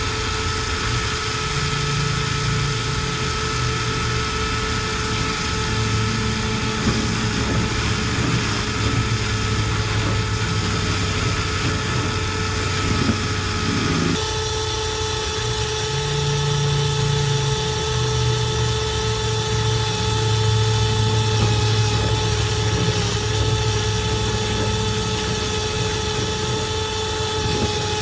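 Power drill steadily spinning a rotary dryer-vent cleaning brush through the vent duct, with a steady whine and hum. About halfway through the sound changes as the brush passes into the periscope duct behind the dryer.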